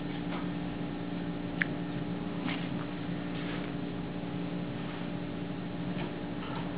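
Steady low electrical hum of a room, with faint scattered soft ticks and one brief high squeak about a second and a half in.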